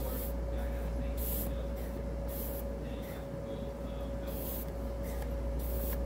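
Short, soft hissing rustles about once a second over a steady low electrical-sounding hum, while hands work the tire on an e-scooter hub motor wheel.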